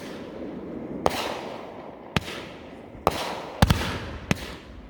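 Fireworks going off in a series of about half a dozen sharp bangs, roughly one a second with two close together, each followed by a fading hiss.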